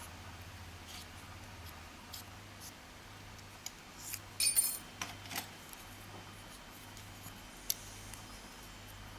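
Small metal clicks and clinks from a pin-tumbler lock being taken apart and its pins handled, a few scattered taps with a short burst of clinking about four to five seconds in. A faint steady low hum underneath.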